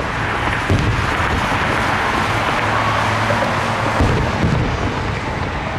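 Fireworks exploding: deep booms about a second in and twice around four seconds, over a continuous dense rumble of noise.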